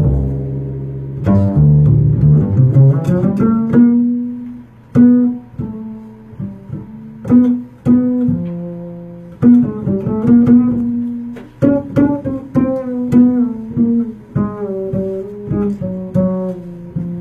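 Upright double bass played pizzicato: a line of single plucked low notes, one after another, each ringing and dying away.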